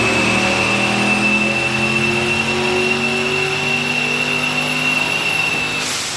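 Turbocharged L33 5.3 L V8 running under load on a chassis dyno, its pitch climbing in steps, with a high steady whistle over it. Near the end the whistle stops, there is a short rush of air, and the engine sound starts to drop as the pull ends.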